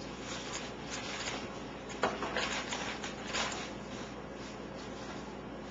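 Hands pressing a piece of chicken into dry breadcrumbs: soft rustling and scraping of crumbs, with a light knock about two seconds in.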